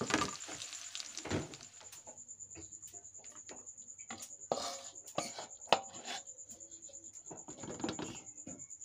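Metal spatula scraping and knocking against a wok in a series of short, irregular strokes as the last of the fried food is scooped out. A light sizzle is heard at first and dies away after about a second.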